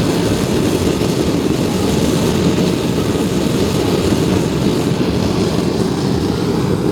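Whisper Mama gas forge burner running lit, a loud, steady, deep rushing noise from the single working burner.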